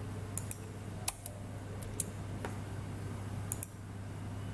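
Computer mouse and keyboard clicks: about eight sharp clicks, several in quick pairs, over a steady low hum.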